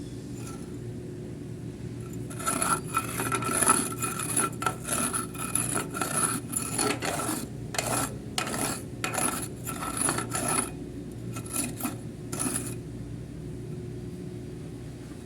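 Repeated metal-on-metal scraping strokes, about two a second with a ringing edge, starting about two seconds in and stopping near the end, over a steady low hum.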